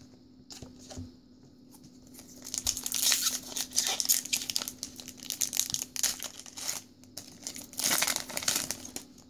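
A foil Pokémon booster pack wrapper being torn open and crinkled by hand. There are a few light clicks first, then a long stretch of crackling from about two and a half seconds in, and a last strong burst near the end.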